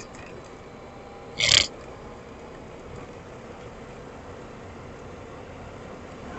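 Honda ATV engine running steadily while riding, with one sudden, short, loud burst of noise about a second and a half in.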